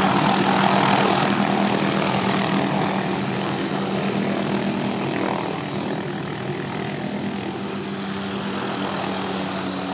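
Small helicopter's engine and rotor running with a steady hum, slowly fading as it moves off low and away.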